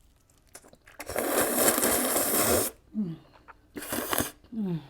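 A long, loud slurp of spicy ramen noodles in sauce lasting about a second and a half, followed by two short falling "mm" hums with a brief breathy burst between them.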